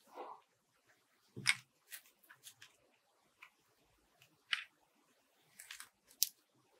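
Scattered short rustles and light taps as hands handle foam fruit-net flowers, a hot glue gun and paper, about half a dozen separate small noises.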